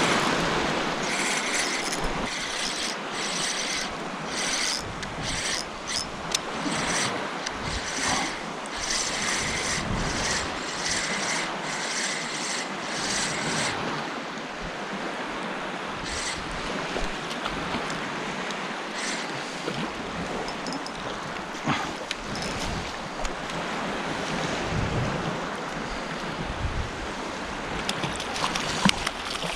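Wind buffeting the microphone over shallow sea water lapping around a wading angler. Through roughly the first half, a quick run of rasping strokes from a spinning reel being cranked to retrieve the lure.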